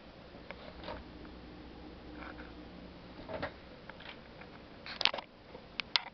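Scattered light clicks and knocks over a faint steady room hum, with a sharper cluster of clicks about five seconds in and two more just before the end.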